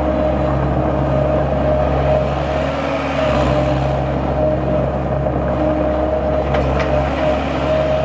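John Deere 4024T four-cylinder diesel engine of a skid steer running steadily, with a constant whine above the engine note.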